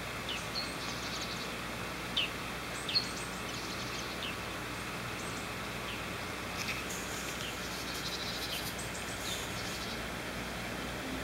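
Steady background hiss, with small birds' short chirps and buzzy trills coming through every second or so.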